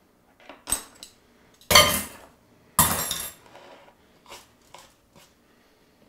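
A fork and a spoon dropped one after the other into a metal bowl: two loud clattering clanks about a second apart, each ringing briefly. Lighter knocks follow as bread rolls are set on a wooden cutting board.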